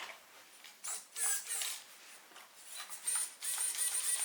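Small electric servos of a 1/18 FMS FCX18 RC crawler whirring in short bursts as they are worked from the transmitter, then a steady high whine with a slight wobble in the last second.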